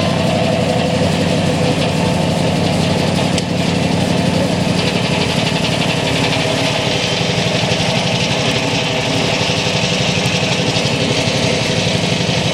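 Belt-driven sawmill running off a Fowler steam traction engine: a steady, loud, fast mechanical beat from the engine and its belt-driven machinery, with a rising hiss joining in about five seconds in.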